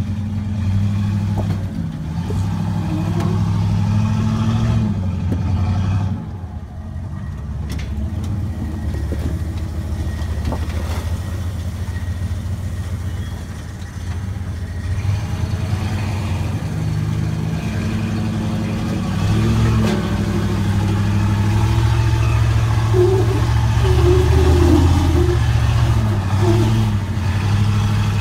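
Ford F-350 pickup's engine running at low crawling speed as the truck climbs a rock ledge off-road, the throttle opening and easing repeatedly. The engine grows louder in the second half as it works up the climb.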